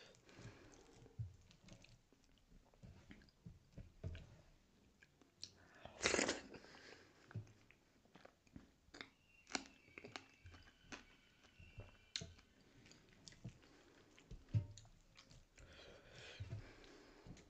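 Close-miked chewing and biting of a mouthful of dhido and sisnu eaten by hand, with sharp crunches of fresh green chili. There is one louder, brief rush of noise about six seconds in.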